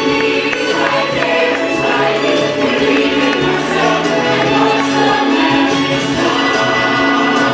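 Stage-show finale song: a choir singing over music.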